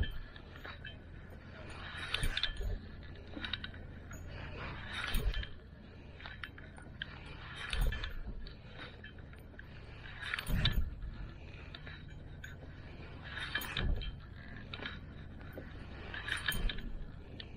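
Small waves washing and splashing against a concrete breakwater, a surge about every three seconds.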